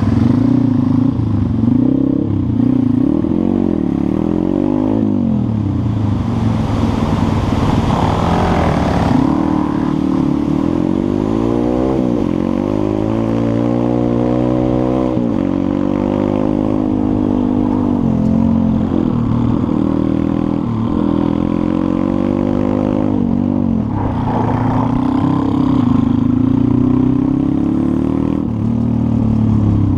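Pit bike engine heard from on the bike while riding a gravel road, its pitch rising and falling again and again as the rider accelerates, shifts gears and backs off, with long rising runs through the middle.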